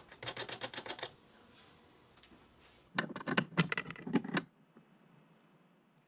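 Two runs of rapid light clicking and clattering from hard parts of the feeder being handled: a short run at the start and a louder one about three seconds in.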